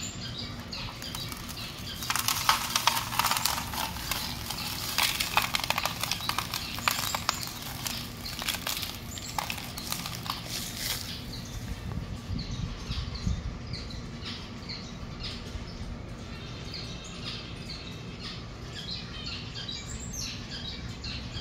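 Small aviary birds chirping with short, high, repeated calls, thickest in the second half. For the first several seconds dense rustling and clattering covers them, over a steady low hum.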